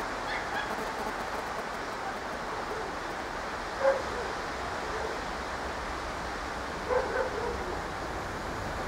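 A dog barking: one bark about four seconds in and two quick barks near seven seconds, over a steady rushing background.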